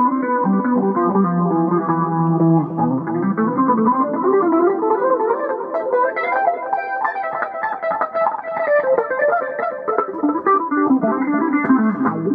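Electric guitar played solo on a clean tone, a steady stream of quick single notes and chords with melodic runs rising and falling.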